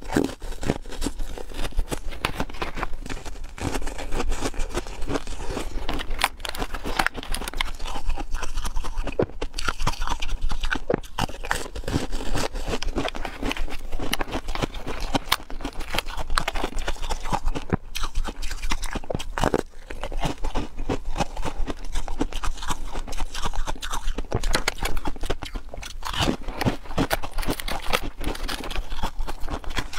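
Close-miked crunching, biting and chewing of frozen ice-cream discs. Dense, irregular crackles keep on throughout, with handling of the plastic mould tray as pieces are pressed out.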